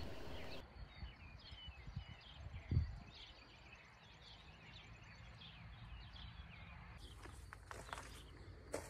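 Faint outdoor ambience with small birds chirping in quick short calls. There is a single low thump about three seconds in.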